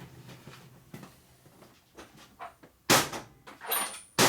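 Shop tools and toolbox being rummaged through: a few light clicks, then two sharp knocks, about three and just over four seconds in.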